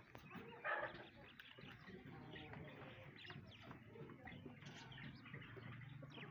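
Faint chatter and scattered chirps of caged birds, cockatiels among them, with a brief louder rustle just under a second in.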